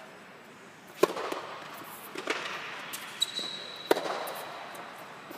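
Tennis balls struck by rackets in a rally on an indoor hard court: a loud, sharp serve about a second in, a fainter return hit from the far end, and another loud hit near four seconds, each one echoing briefly under the dome.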